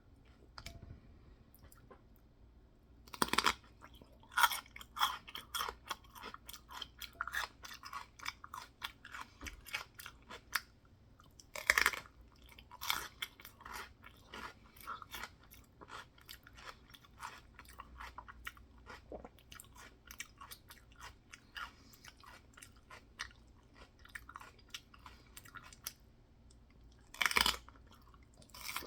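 Loud open-mouthed chewing of a food mixture with celery in it: a dense run of quick clicking chews starting about three seconds in, with a few louder crunches about three, twelve and twenty-seven seconds in.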